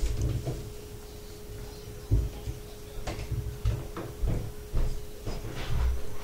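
Tobacco pipe being puffed: soft lip pops and breathy puffs on the Peterson pipe's stem, irregular, roughly one every half second from about two seconds in, over a faint steady hum.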